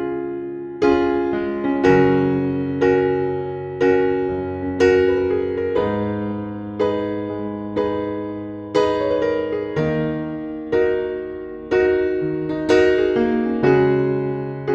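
Background music: slow electric piano chords, about one each second, each struck and left to fade before the next.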